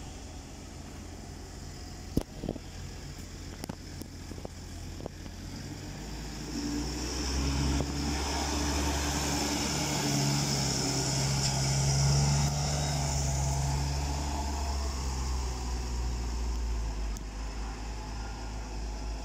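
Farm tractors' diesel engines running as they drive over a maize silage clamp to pack it down. One engine note grows louder about a third of the way in, is loudest just past the middle, and fades near the end. There is a single sharp knock about two seconds in.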